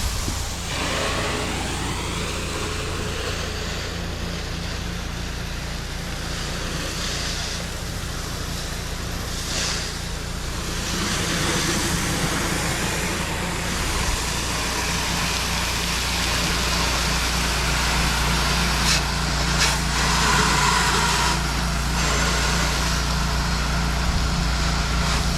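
Pressure washer's engine running steadily under the continuous hiss of the wand spraying a downstreamed sodium hypochlorite (SH) solution onto a house wall.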